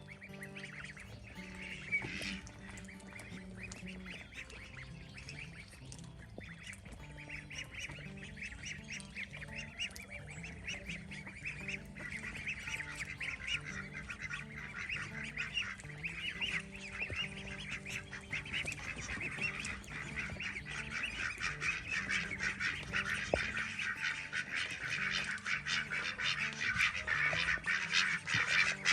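A flock of ducks quacking and chattering in a dense, continuous stream of calls that grows louder toward the end, with background music underneath.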